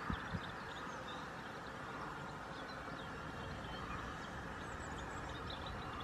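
Faint, high-pitched chirps of small songbirds, a few in the first second or so and again near the end, over a steady background rumble, with a couple of low thumps right at the start.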